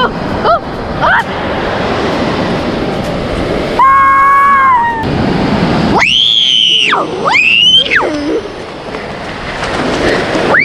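Steady surf and wind noise at the beach. A flat horn-like tone is held for about a second, about four seconds in. Two loud squealing cries follow around six and seven seconds, each rising, holding, then falling.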